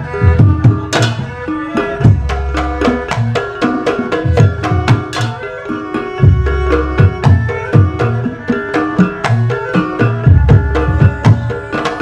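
Live Javanese jaranan campursari ensemble music led by kendang barrel drums, played with fast hand strokes and deep low drum beats that come in clusters every few seconds, over violin and other percussion.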